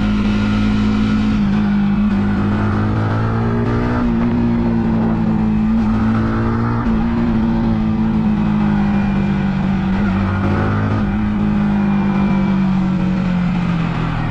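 Yamaha MT-15 V2's single-cylinder engine and exhaust running at a steady, fairly high speed. Its note rises and dips slightly in pitch a few times.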